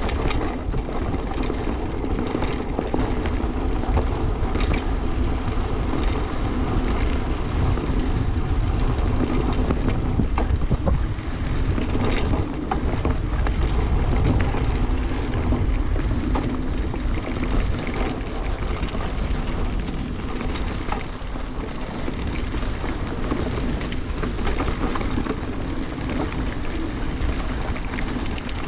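Mountain bike rolling along a dirt forest trail: steady tyre noise and rattling from the bike, with occasional sharp knocks, under heavy wind rumble on the microphone.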